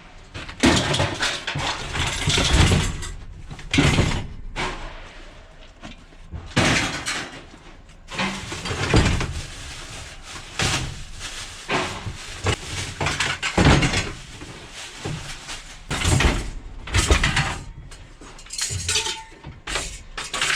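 Light iron scrap being thrown out of a van onto a pile: a run of irregular metal clanks and crashes, about one or two a second, some ringing briefly.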